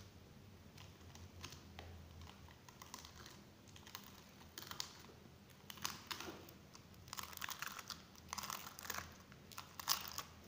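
Fingers pressing and poking floppy slime in a plastic tub, making the air bubbles trapped in it pop with faint, irregular little clicks and crackles. The pops come in clusters through the middle and near the end.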